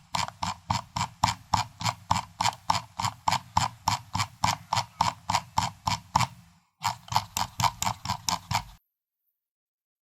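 Computer mouse scroll wheel being turned notch by notch, clicking evenly at about four clicks a second. The clicking pauses briefly about two-thirds of the way through, resumes for about two seconds, then stops.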